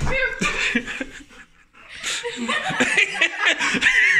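People laughing and chuckling, with a short lull about a second and a half in before the laughter picks up again.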